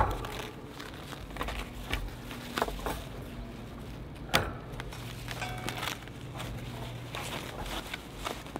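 Unpacking of a steel fire pit: plastic wrapping rustling and metal parts clicking as they are handled, with one sharp snip about four seconds in as a cable tie is cut. A low steady hum runs underneath.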